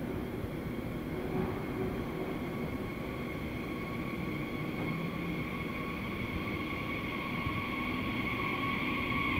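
Bombardier Twindexx Vario (DB class 446) double-deck electric multiple unit rolling slowly in along the platform. It makes a low rumble with a steady high whine that grows louder as the train draws near and passes.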